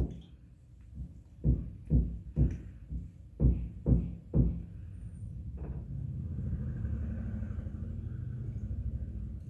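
A run of dull knocks and glugs, roughly one every half-second, as a bottle of vinegar is handled and poured into a model volcano. Then a steady low rumble with a faint fizz from about six seconds in.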